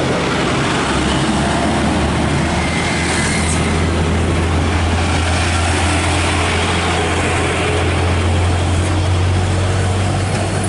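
A heavy truck's engine running steadily as a loud low drone, with road noise mixed in.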